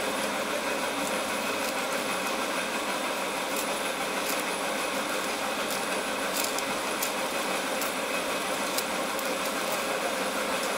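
A steady machine-like drone, with scattered light clicks and clatter of bamboo arrows as they are pulled out of a straw target and gathered into bundles.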